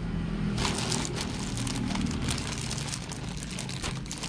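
Quick irregular rustling and crinkling of packaging, starting about half a second in, over a low steady hum.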